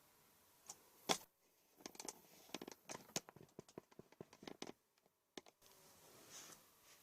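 A run of faint, sharp clicks and snaps from a laptop's keyboard being pried loose from its clips and handled, with one louder snap about a second in.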